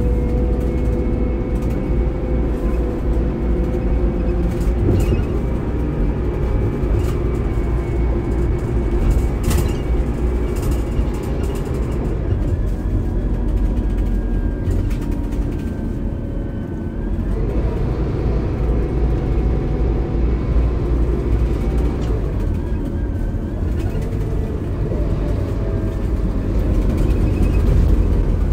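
Scania K280IB coach's DC9 five-cylinder diesel running, with the whine of its ZF Ecomat II automatic gearbox over it. The sound eases briefly a little past halfway, then a rising whine climbs again. A few light clicks come in the first half.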